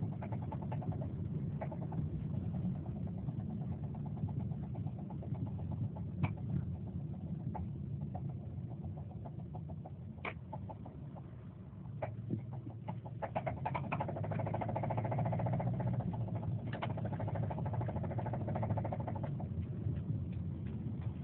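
2007 Subaru Forester XT's turbocharged flat-four engine running, with a rapid knocking that comes and goes: strong at the start, fading, then back and louder from about halfway through. The owner suspects it could be rod knock.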